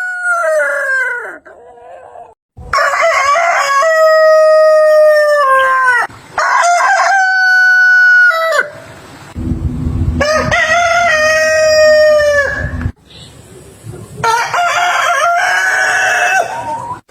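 A rooster crowing repeatedly: the tail of one crow, then four long cock-a-doodle-doo calls one after another, each ending on a falling note. A low rumble runs under the third crow.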